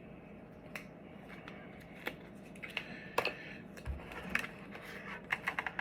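Hand-handling noise: scattered small clicks, crinkles and rustles as adhesive-backed Velcro pads are peeled and pressed into a helmet's speaker cutout, with a dull thump about four seconds in.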